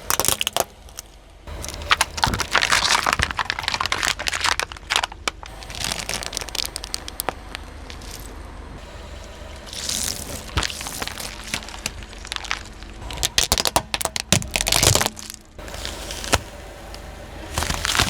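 Plastic toy police car cracking and crunching under a car's tyre: several bursts of snapping and crackling over a low steady hum.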